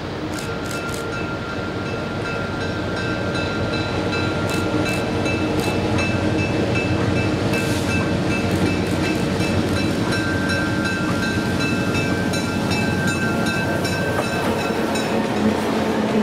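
Vintage EMD diesel locomotives pulling a passenger train, their engines running and growing louder over the first several seconds as the train approaches. A thin, steady high whine sits over the engine noise, with a few sharp clicks.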